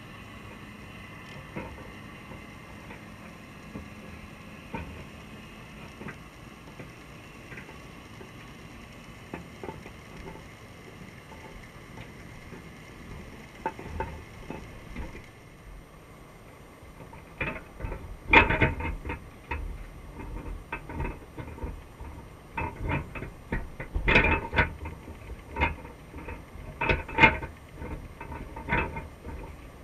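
Clicks, taps and knocks heard underwater through the camera's housing, mostly in a dense, uneven run from about two-thirds of the way in: a female Dungeness crab's legs and shell striking and scraping the wire crab trap close to the camera. Before that there is only a faint steady hum with an occasional tick.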